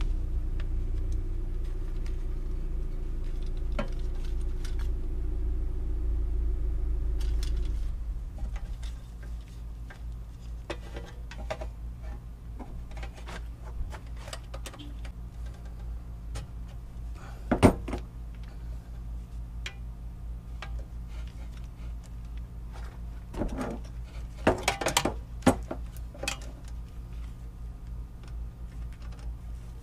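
Light metal clinks and taps from a screwdriver and wire terminals being handled while copper wires are fastened into a 50-amp welder receptacle, the sharpest about two-thirds of the way through and a short cluster near the end. Under them runs a steady low hum, with a louder drone that stops about eight seconds in.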